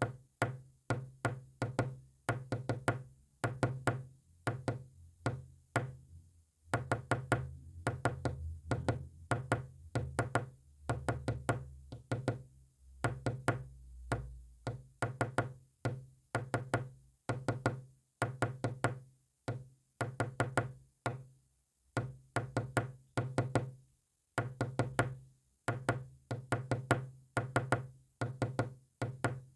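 Morse code tapped out as sharp knocks or clicks, in quick irregular groups with short pauses between them.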